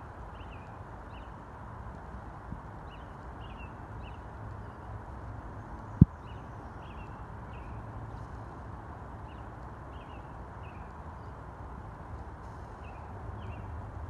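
Small bird chirping over and over in short high calls, over steady outdoor background noise, with one sharp thump about six seconds in.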